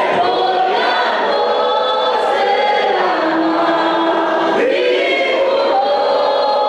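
A choir singing, the voices holding long sustained notes.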